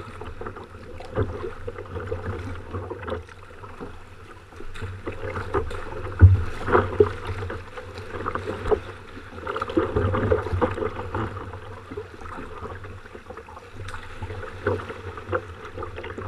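Sea kayak being paddled: water splashing and slapping against the hull and paddle blades in irregular strokes, the loudest splash about six seconds in.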